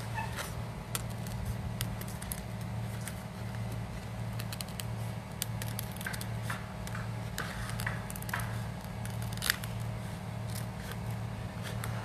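Scissors cutting through a dry, brittle leaf: short, irregular snips as the blades close.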